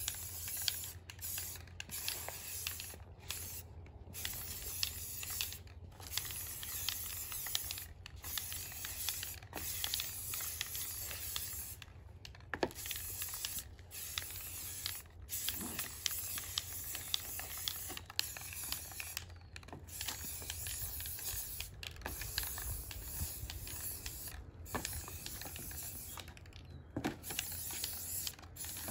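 Aerosol can of primer spraying in long hissing passes, cut by short pauses every few seconds.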